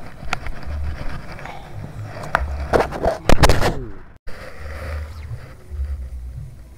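Handling noise close to the microphone as the phone is moved: a cluster of scrapes and knocks a little past halfway, over an uneven low rumble. The sound cuts out for a moment just after the knocks.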